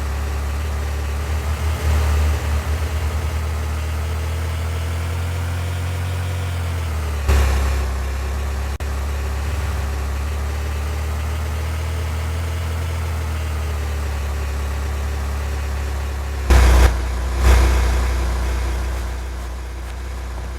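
Car engine running with a steady low rumble and a faint whine that dips and rises. A quick flutter of soft knocks comes about two seconds in, a thump at about seven seconds, and two louder thumps near the end.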